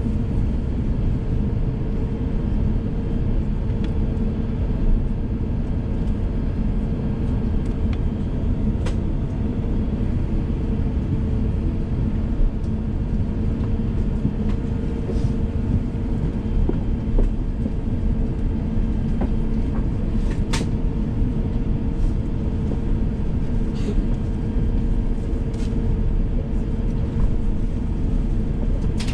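Cabin noise of an Airbus A350-1000 taxiing: a steady low rumble from the ground roll and the idling engines, with a constant hum and a few faint clicks and knocks.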